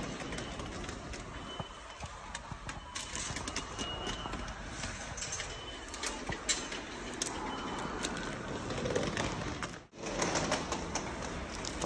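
Subway station ambience: a steady wash of noise with scattered clicks and knocks, and a couple of short high beeps in the first few seconds.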